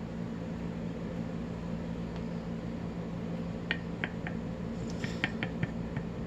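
Light, sharp clicks of small padlock parts being handled as the lock is taken apart, several scattered ticks starting about halfway through, over a steady low hum.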